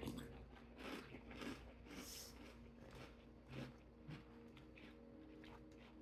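Faint close-up chewing of a mouthful of crunchy cinnamon mini-doughnut cereal: a string of soft crunches, thickest in the first two seconds, with a few more a little past the middle.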